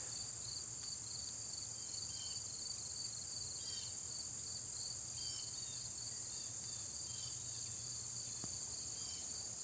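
Crickets and other insects chirping steadily: a continuous high-pitched trill with a fast pulsing chirp just beneath it.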